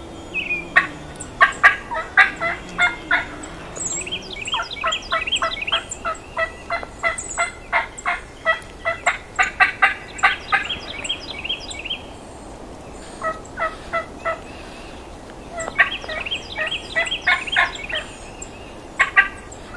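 Wild turkey gobbling repeatedly, in runs of quick rattling notes. The longest run lasts about six seconds, and the others come in shorter bursts with brief pauses between them.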